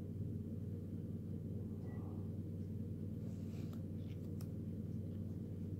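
A steady low hum, with faint rustles and a few light ticks of fingers handling a small paper label.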